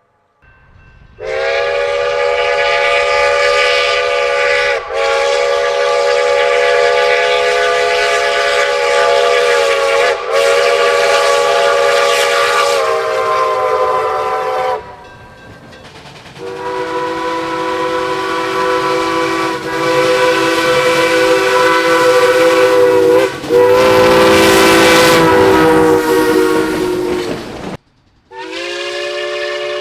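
A locomotive sounding a multi-note chime chord in a series of long sustained blasts with short breaks between them, the chord changing partway through. Rumble and hiss of a moving train lie underneath.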